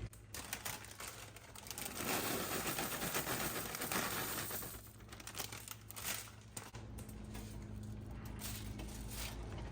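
Plastic bag of egg noodles crinkling as the noodles are poured out, loudest for a couple of seconds starting about two seconds in.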